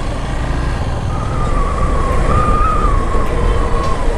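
Hero XPulse 200 motorcycle being ridden: a steady low rumble of engine and road noise. A single wavering high-pitched tone sounds over it from about a second in until near the end.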